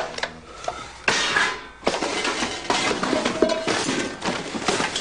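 Crashing and clattering of objects being smashed and knocked about, with clinking of metal and glass: a sharp crash at the start, a heavier one about a second in, then a run of rattling knocks.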